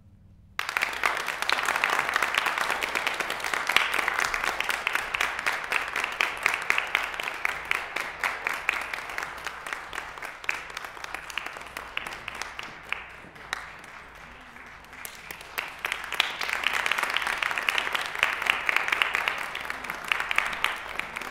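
Audience applauding, beginning about half a second in. The clapping thins out a little midway, then picks up again.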